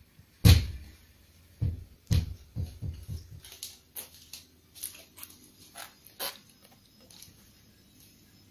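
A series of knocks and thumps, with no cat calls: one sharp knock about half a second in, a quick run of heavier thumps over the next couple of seconds, then lighter taps and clicks that die away after about six seconds.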